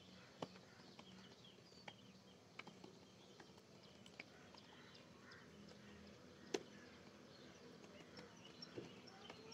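Faint, irregular keyboard keystroke clicks from typing code, spaced out with pauses, over a quiet low hum.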